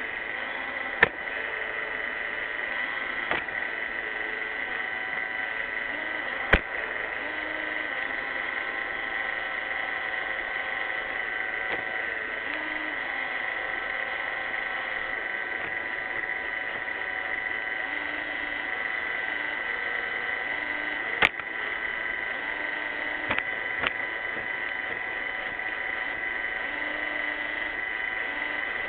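iRobot Roomba 600 robot vacuum running steadily, its motor and brushes giving an even whirring noise with a constant high whine, broken a few times by short sharp knocks.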